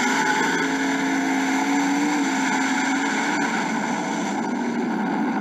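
Drag race car's engine at full throttle during a pass, heard from a camera mounted on the car: a loud, steady engine note that edges slightly higher a second or two in, with wind rush over it.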